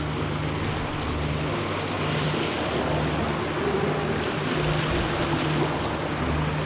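Rushing, churning river water around a kayak going through rapids, a steady wash of noise.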